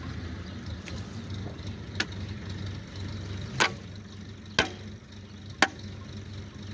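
Garden spade digging into soil: four sharp strikes, about a second apart from the second one on, over a steady low hum.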